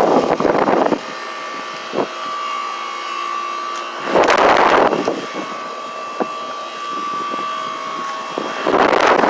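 Old York central air conditioner's condenser unit running with a steady hum and constant tone from its compressor, which is taken for a Bristol reciprocating compressor, and its condenser fan. Three loud rushes of air on the microphone, each about a second long, come at the start, about four seconds in and near the end.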